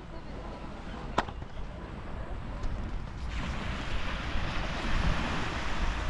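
Black Sea waves washing onto the beach, with wind rumbling on the microphone; the rush of surf swells up about three seconds in and grows louder. A single sharp click about a second in.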